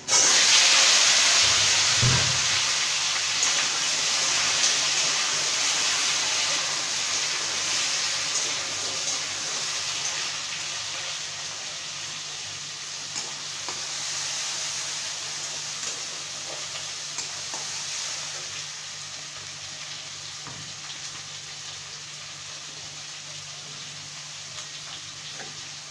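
Potato pieces dropped into hot oil in a wok: a loud sizzle starts at once and slowly dies down as they fry. A brief low knock about two seconds in.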